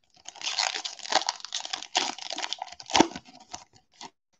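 Foil trading-card pack wrapper crinkling and tearing as it is ripped open by hand, with its sharpest tear about three seconds in.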